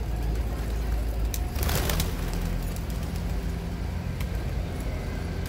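Feral pigeons taking off from the ground, a short flurry of wing flaps about one and a half seconds in, over a steady low rumble of street traffic.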